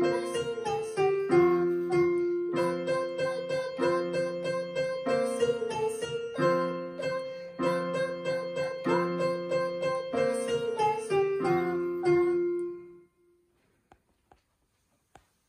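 Electronic keyboard played one note at a time in a piano-like voice, a simple children's tune in F major. The notes are held and even. The playing stops about thirteen seconds in, followed by a few faint clicks.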